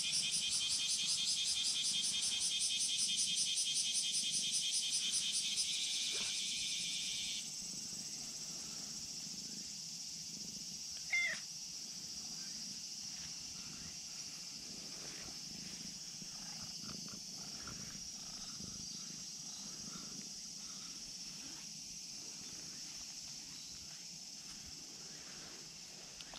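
Insects buzzing in a loud, rapidly pulsing high drone that breaks off about six to seven seconds in, leaving a steadier, quieter high drone. A short cat meow sounds once, about eleven seconds in.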